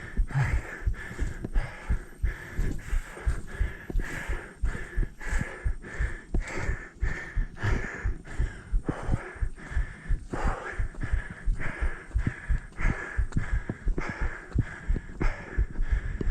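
A runner's footsteps thudding on a trail, two to three steps a second, with hard rhythmic breathing over them.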